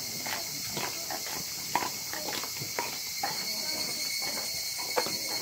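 A steady, high-pitched drone of insects, with a few sharp footsteps and faint voices.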